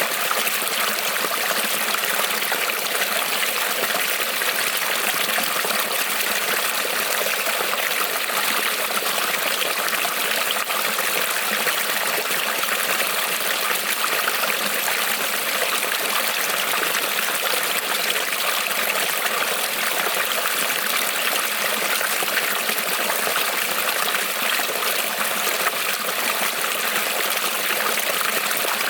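A small creek rippling and trickling over stones, a steady, even water sound with a bright hiss.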